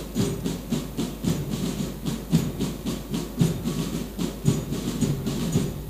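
A steady rhythmic beat of evenly spaced strikes, about three a second, over a low rumble.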